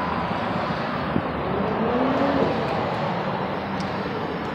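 Road traffic: cars driving past, with one engine's note rising in pitch about halfway through.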